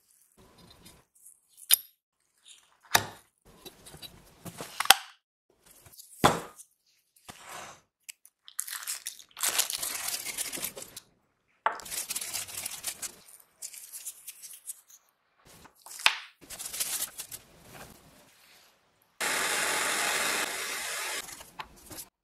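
Small engine parts being handled on a wooden workbench: sharp clicks and knocks as the metal crankcase halves, crankshaft and connecting rod are set down and fitted, then crinkling plastic as a new piston is unwrapped from its bag. Near the end comes a steady noise lasting about two seconds.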